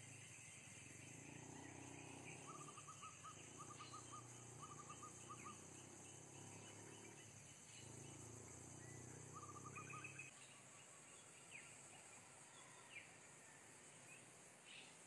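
Caged zebra dove cooing softly in two low, rolling phrases, the second cutting off about ten seconds in. Its song is broken and incomplete ('lupa lirik', forgetting the lyrics), which the owner puts down to the bird being off form.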